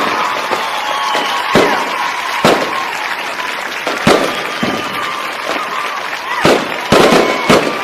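Fireworks exploding overhead in about eight sharp bangs, spaced irregularly and bunched near the end, over a steady din of crowd voices.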